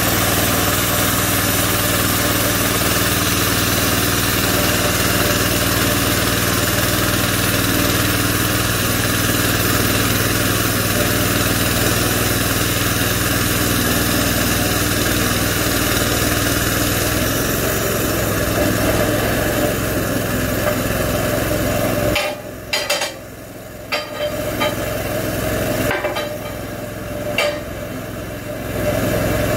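Small gasoline engine driving a homemade bandsaw mill through a cut in a log, running steadily. About two-thirds of the way through it gets quieter, and a few wooden knocks follow as a sawn board is lifted off the log.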